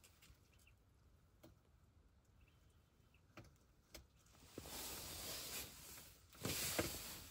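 Faint rustling with a few soft clicks. Two longer, louder stretches of rustle come in the second half.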